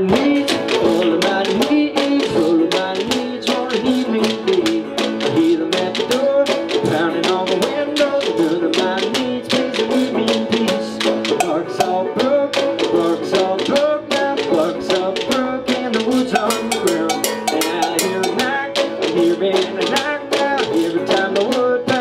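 Live string-band instrumental: banjo and resonator guitar picking together over quick, steady percussion struck on a wooden slatted chicken-coop crate.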